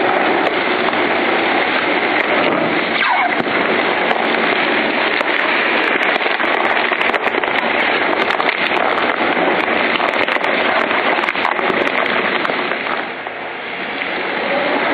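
Inverter-driven twin-shaft waste shredder (Lion Shredder EVO) crushing mixed plastic bags and bottles: a loud, continuous crackling and crunching full of sharp snaps of breaking plastic. It is running at normal speed under load, and the noise dips briefly near the end.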